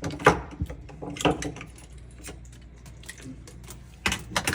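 Handling noise of wiring being pushed back into an air conditioner's wiring panel: scattered clicks and rattles, with sharper knocks about a quarter second in, at about a second and near the end.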